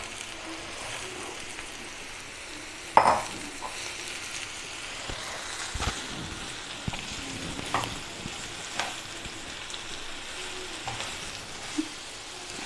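Freshly added sliced button mushrooms sizzling in ghee in a frying pan over a high gas flame, with a spatula stirring and scraping the pan. A louder clatter comes about three seconds in, and lighter clicks follow every second or two.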